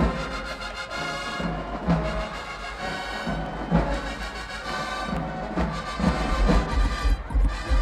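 Marching band playing loud, held brass chords over repeated bass-drum beats.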